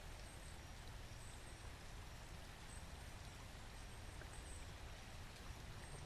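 Quiet outdoor ambience: a low steady rumble with short, faint, high bird chirps scattered through it.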